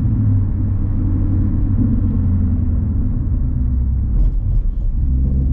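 Ford Mustang with an aftermarket exhaust cruising at light throttle, heard from inside the cabin: a steady low exhaust rumble.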